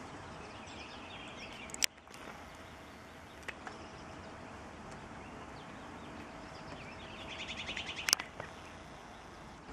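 Outdoor pasture ambience: birds chirping over a steady background hiss, with a quick trilling call a little before the end. Two sharp clicks, one about two seconds in and one near the end.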